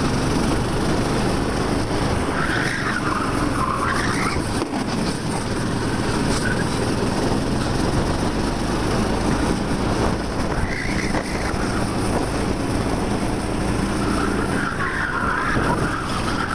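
13 hp racing kart engine running hard under load, heard from the driver's helmet microphone. Three times, about two seconds in, about ten seconds in and near the end, the tyres squeal briefly through the corners.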